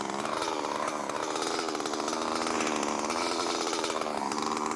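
Stihl chainsaw running at high revs while cutting through an oak log, its engine pitch sagging slightly under load and picking up again.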